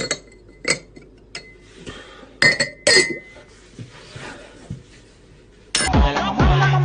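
Glassware clinking: a champagne flute knocked against a glass tumbler several times, with two louder clinks that ring on briefly about two and a half and three seconds in. Electronic dance music with a steady beat starts near the end.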